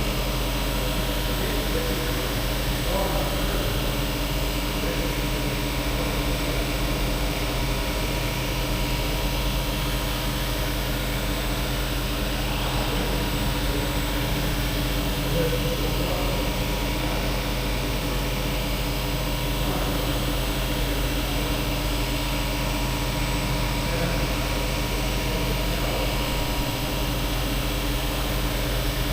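A CNC machine running, heard from inside its enclosure: a steady mechanical hum with several constant tones over a noisy whir that holds level throughout.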